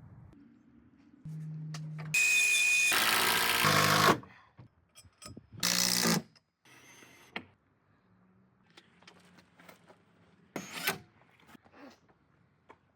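Power tool running in two bursts, a long one of about two seconds and a short one near the middle, with scattered small knocks and clicks afterwards.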